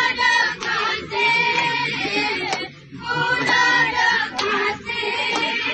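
Women singing a Gayo Bines dance song together, unaccompanied, with sharp hand claps about once a second keeping the beat.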